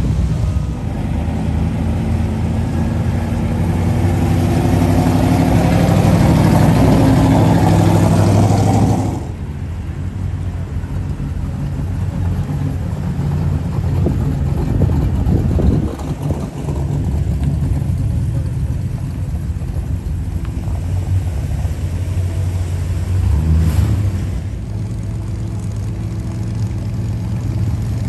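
Classic cars and hot rods rolling past one after another at low speed, engines running at a low idle-like pace. The loudest pass fills the first nine seconds or so and drops off suddenly; a quieter steady engine sound follows, with a brief swell near the end.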